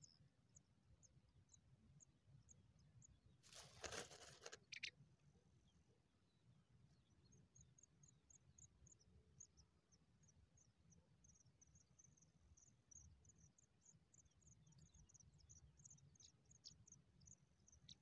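A brief rustle of dry grass about four seconds in. After it, faint, high, thin cheeping comes in quick runs through the rest: pipit nestlings begging while the adult feeds them at the nest.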